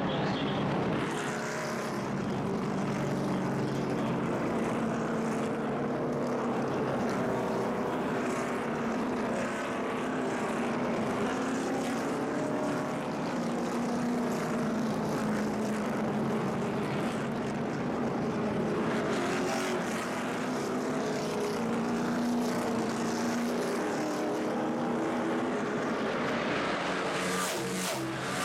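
A pack of NASCAR Sprint Cup stock cars racing past at speed, their V8 engines a loud, continuous din of overlapping engine notes rising and falling as cars go by.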